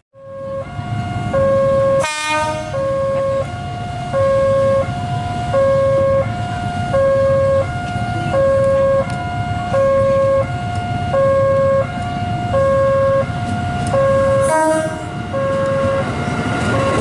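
Railway level-crossing warning alarm sounding an electronic two-tone signal that alternates high and low about every 0.7 s, over a low rumble. The signal breaks off briefly about two seconds in and again near the end.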